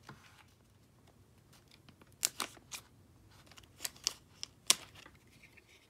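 A plastic bag rustling and being snipped open with a pair of cutters: several sharp snips between about two and five seconds in, with faint crinkling of the plastic.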